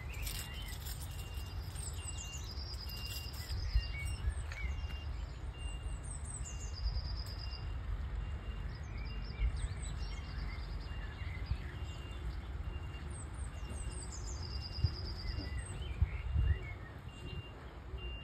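A lorry's reversing alarm beeping: a single repeated tone, about one beep a second, over a low rumble. Birds sing and trill over it.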